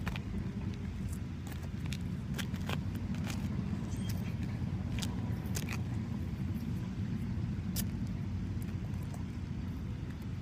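A steady low outdoor rumble with scattered light clicks and taps throughout.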